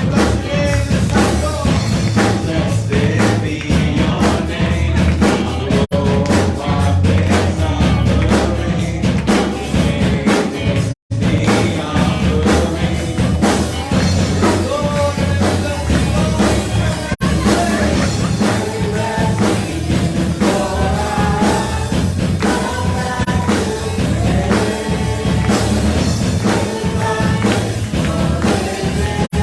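Worship music from a band with singers: a sung melody over drum kit and bass with a steady beat. The sound cuts out for a split second about eleven seconds in.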